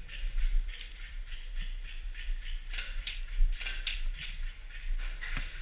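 Airsoft guns firing during a game: a few sharp snaps, some in quick bunches of two or three, over a steady low rumble.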